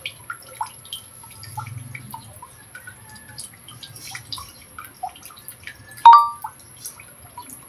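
Thick dark sugar syrup simmering in a metal wok, bubbles popping a few times a second. About six seconds in, a metal spoon clinks once against the wok with a short ring.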